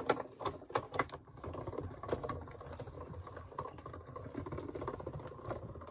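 Die-cutting and embossing machine running a stack of plates, lace and dampened paper through its rollers to press the lace pattern into the paper. A few separate clicks in the first second or so, then a steady mechanical rattle.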